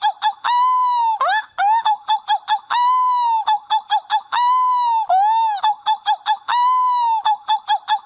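Seagull calling over and over: strings of short, quick yelps alternating with long calls that rise and fall in pitch, about one long call every two seconds.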